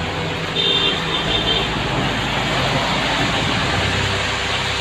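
Heavy truck and car traffic passing close on a wet road: steady tyre hiss and engine noise, with a brief high-pitched tone about half a second in.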